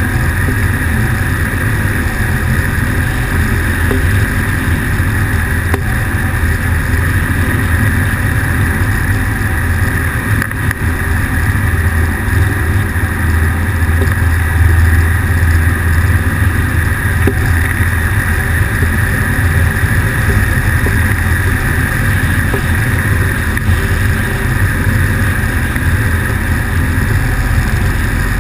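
Weight-shift microlight trike in flight: its pusher engine runs at a steady cruise, with air rushing past the open cockpit.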